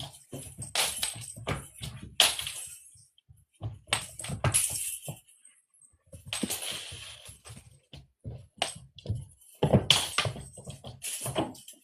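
Cat toy clattering and jingling on a hard surface as cats bat at it: bursts of rattling clicks with a bright metallic ring, separated by short pauses.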